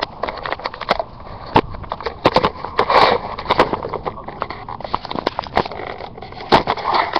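Food dishes and dry feed (hay and pellets) being handled while guinea pigs are served: many irregular sharp clicks and knocks, with a couple of short rustles.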